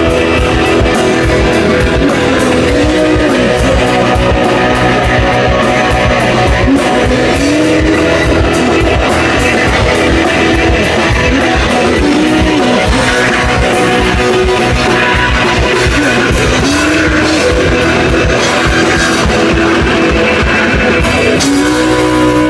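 Live rock band playing loudly, with electric guitar over a busy drum kit and a riff that repeatedly bends in pitch. About a second before the end the drumming stops and the band holds a sustained chord.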